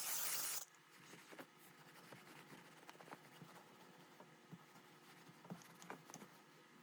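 A loud, steady hiss that cuts off suddenly about half a second in, followed by faint scattered clicks and rubbing.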